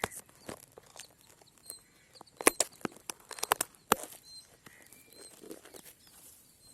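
Crisp rustling and sharp snapping of corn plants' leaves and stalks being handled by hand, in irregular bursts. Faint short bird chirps sound now and then.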